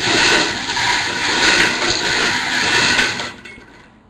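Lettered bingo marbles rattling and rolling together as they are mixed for a draw, stopping abruptly a little over three seconds in.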